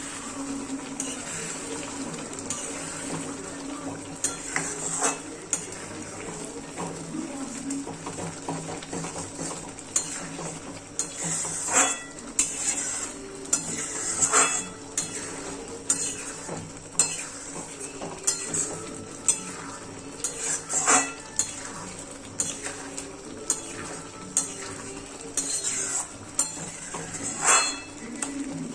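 A metal spatula or spoon stirring and scraping in a cooking pan, with irregular clinks and knocks against the metal over a steady sizzle of food frying.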